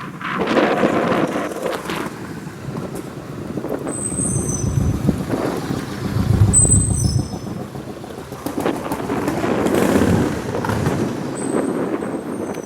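Wind buffeting the microphone in gusts, with loud low rumbling surges about a second in, around six seconds in and around ten seconds in. A few short, high chirps come in small clusters over it.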